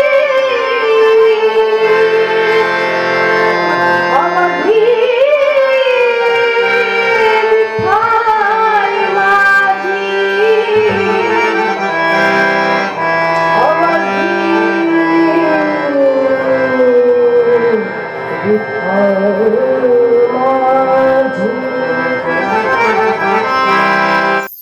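Marathi Varkari bhajan: a solo voice singing a melismatic, sliding melody over steady held harmonium chords, with tabla keeping time. The music breaks off abruptly near the end.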